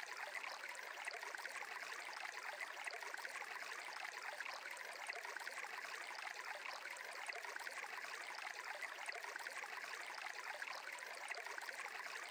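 Faint, steady running water like a flowing stream, an even rushing hiss with no distinct events.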